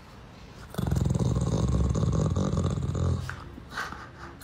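A pit-bull-type dog growling in play: one low, rasping growl that starts about a second in and lasts roughly two seconds, then trails off.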